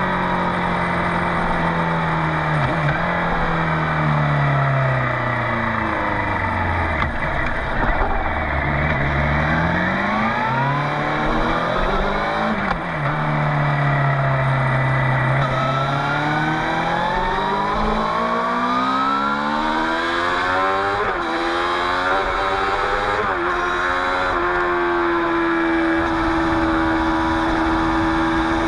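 Suzuki GSX-R 600 K7's inline-four engine through a Yoshimura R55 slip-on exhaust, on the move. The revs fall away, then rise again, with brief dips as it changes gear. Near the end it climbs in steps through the gears and settles into a steady cruising note.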